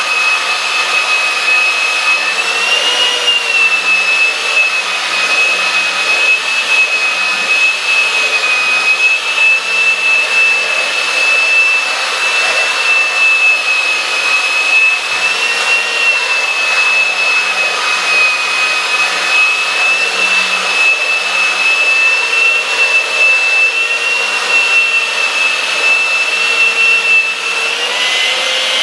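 Skil handheld belt sander running steadily on a flat wooden sign face, its belt rasping along the grain under a steady high whine that wavers slightly as it is pushed back and forth. This is the coarse stock-removal pass that comes before finishing with an 80-grit belt.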